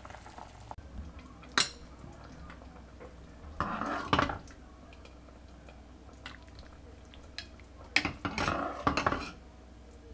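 Ladle clinking and scraping against a pot and bowl as soup is served: a sharp clink about one and a half seconds in, a short scrape-and-pour around four seconds, then another clink followed by a longer scrape-and-pour near the end.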